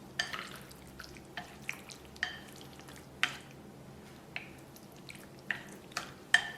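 Chicken breast strips being mixed through a thick starch-and-egg batter in a bowl: irregular wet clicks and smacks, several to a second or so apart.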